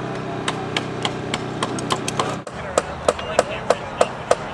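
Hammering, about three blows a second, each with a short ring. A steady hum underlies the first half and cuts off about halfway, after which the blows come louder and more evenly.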